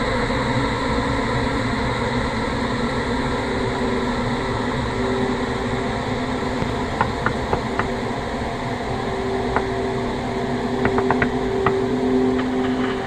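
Steady, dense rumbling drone with a held low hum, a horror ambience sound effect. Short sharp clicks come in a few at a time about seven seconds in and again around eleven to twelve seconds.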